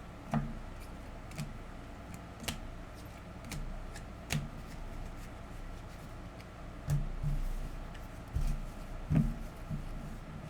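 Trading cards being handled on a table: scattered light clicks and taps, with a few louder soft thumps in the second half.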